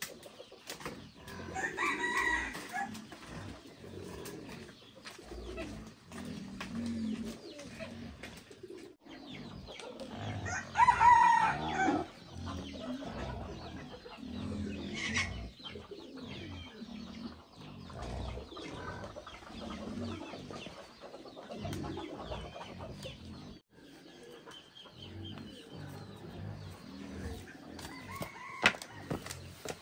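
Free-ranging farmyard chickens: a rooster crows about two seconds in and again, louder, around eleven seconds in, with hens clucking between. A few sharp clicks are heard.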